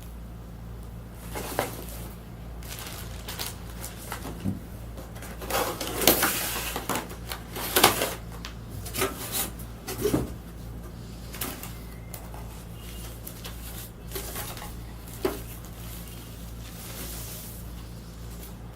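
Irregular handling noises of unpacking: rustles, light knocks and clicks of packaging and parts being moved, busiest in the middle and dying out near the end, over a steady low hum.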